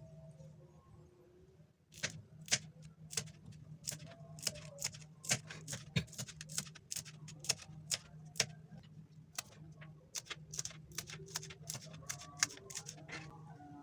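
A knife chopping on a cutting board: irregular sharp clicks, a few a second, starting about two seconds in and stopping just before the end, over a steady low hum.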